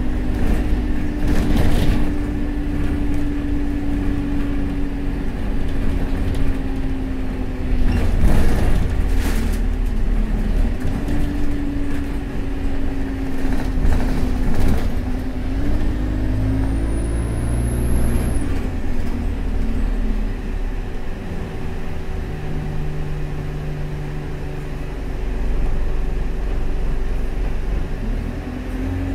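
Alexander Dennis Enviro200 bus heard from inside the saloon while under way: a steady engine and driveline drone with road noise. Bursts of rattling from the body and fittings come about a second in, around eight to nine seconds, and around fourteen seconds. A brief high whine rises and falls about eighteen seconds in.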